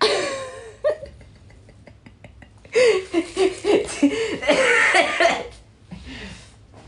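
A man laughing in two stretches, with a few faint clicks between them.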